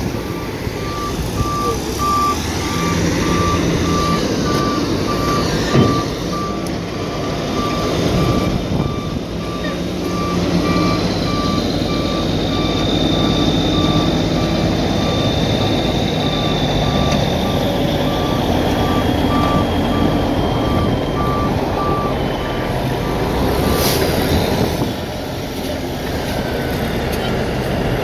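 Dump truck reversing, its backup alarm beeping steadily over the diesel engine running. The beeping stops near the end.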